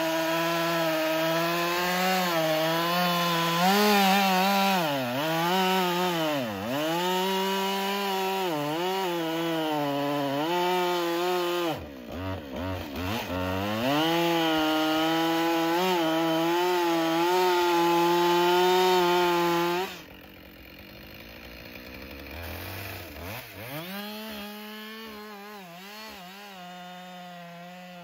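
Two-stroke chainsaw running at full throttle, its pitch dipping again and again as it bogs down under load in the cut. About 20 seconds in it drops quieter and lower, then revs back up.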